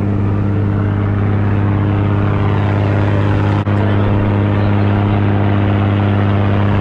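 Outrigger boat's engine running steadily under way, a constant low drone, over rushing wind and water.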